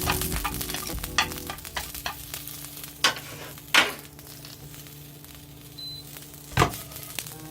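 Food sizzling and crackling as it fries in a pan, with a few sharp knocks, the loudest about four seconds in.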